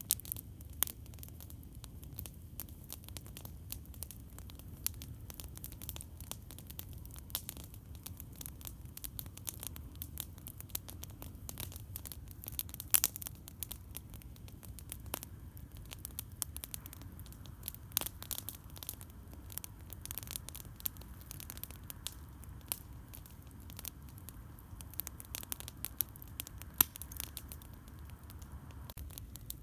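Wood campfire crackling, with frequent sharp, irregular pops and snaps over a steady low rumble.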